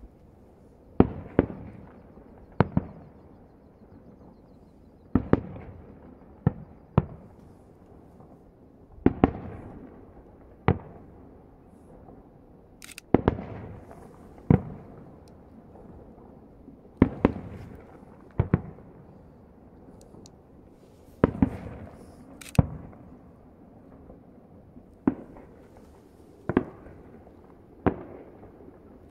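Aerial firework shells bursting about a kilometre away: a series of sharp booms every few seconds, often two in quick succession about a second and a half apart, each trailing off in a rolling echo.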